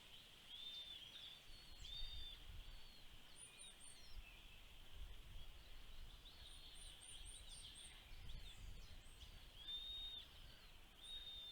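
Faint bird calls outdoors: short, arched whistled notes repeated every second or two, and quick runs of four or five very high, thin notes, over a steady faint high-pitched hiss and a low rumble.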